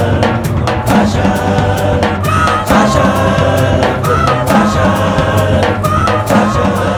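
Upbeat music with singing and a steady drum beat.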